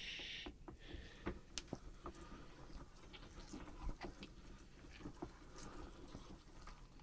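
Vintage hand-cranked meat grinder turning as ham is fed through, faint irregular clicks and scrapes from the crank and auger.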